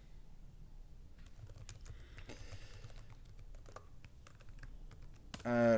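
Faint, irregular keystrokes on a computer keyboard being typed on.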